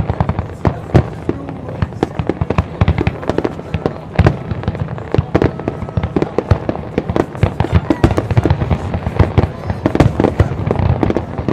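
Fireworks display: aerial shells bursting in rapid succession, booms and crackles overlapping several times a second without a break.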